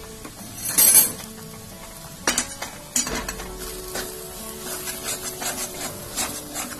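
Metal spatula scraping and stirring mashed potato stuffing in a steel kadai as it cooks on the heat. The loudest scrape is about a second in, and a run of quicker, shorter strokes comes near the end.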